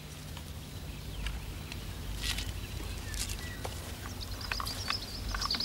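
Scattered light knocks and clicks as a plastic fuel canister and a chainsaw are handled while the saw's tank is filled. A bird starts chirping near the end.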